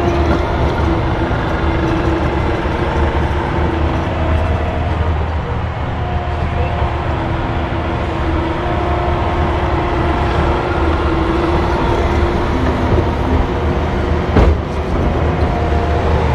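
Excavator's diesel engine running under load, with hydraulic whine that comes and goes and shifts in pitch as the controls are worked. A single sharp knock about fourteen seconds in is the loudest moment.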